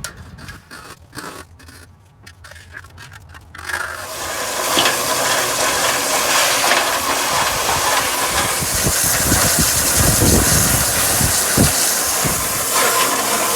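A strong spray of water starts about three and a half seconds in and runs on steadily, with knocks and scrapes beneath it: concrete being rinsed off the tools after a pour. Before the spray, a few scattered knocks.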